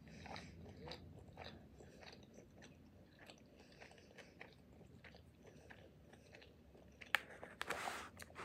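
A person chewing a mouthful of pupusa, with many small soft clicks of mouth sounds. A few louder, sharper noises come near the end.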